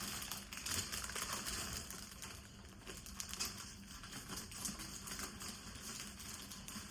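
Plastic clothing packaging crinkling and rustling as it is handled and unwrapped, busiest about a second in and again around three seconds in.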